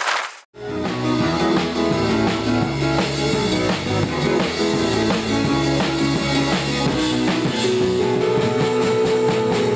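A loud rushing noise cuts off abruptly at the very start. About half a second in, music with drum kit and guitar begins and plays steadily.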